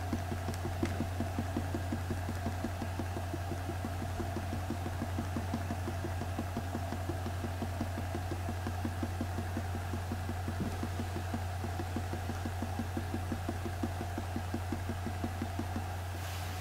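Steel tip of a 0.4 technical pen tapping dot after dot onto paper while stippling, a quick steady rhythm of several light taps a second over a steady low hum.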